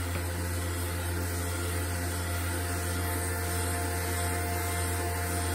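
Hot air rework gun blowing steadily with a low hum and hiss, aimed at the back cover of a Samsung Galaxy A71 to soften its adhesive.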